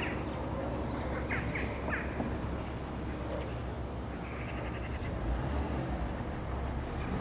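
Short, sharp bird calls sound several times in the first two seconds, then a brief rapid rattling call a little after four seconds, over a steady low outdoor rumble.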